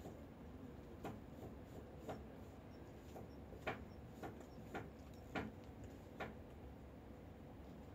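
A cat eating dry cat food: a handful of sharp, irregular crunches that stop after about six seconds.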